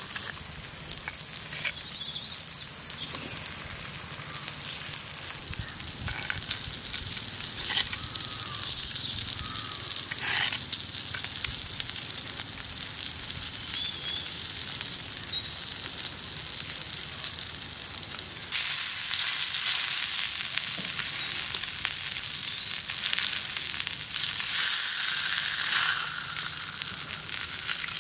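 Pork sizzling on a hot stone slab over embers, a steady hiss of frying fat with small pops and crackles, swelling louder a couple of times in the second half.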